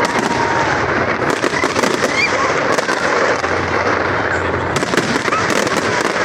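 Fireworks display going off: a continuous crackle of many rapid sharp pops and cracks with no pause, at a steady loudness.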